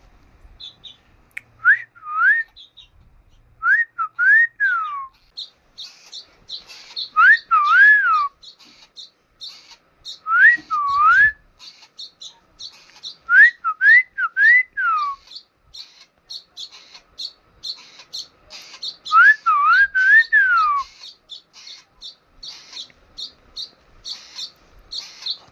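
Baby parrot chirping rapidly and steadily in short high notes, with clear rising-and-falling whistles coming in short groups of two to four every few seconds.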